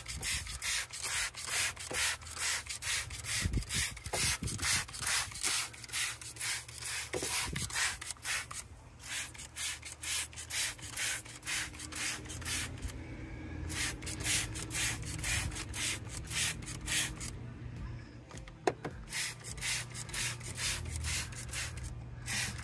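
Hand trigger spray bottle pumped over and over, each squeeze a short hiss as it mists cleaner onto the engine, about two to three squirts a second with a few short pauses. One sharper click comes late on.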